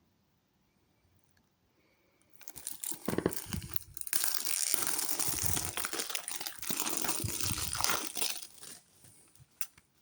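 Plastic shrink-wrap being torn and peeled off a CD case, crinkling loudly. It starts a couple of seconds in and dies away near the end into a few light clicks.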